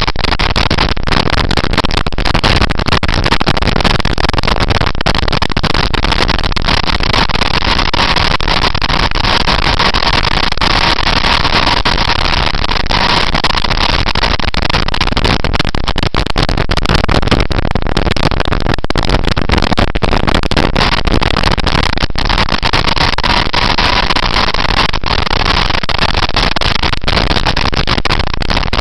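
Motorcycle riding at speed: loud, steady, fluttering wind rush on the bike-mounted camera's microphone, with the engine running underneath and a faint steady whine.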